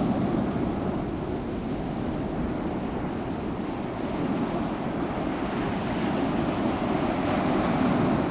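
Sea waves breaking and washing in a continuous, even surf noise, swelling slightly near the end.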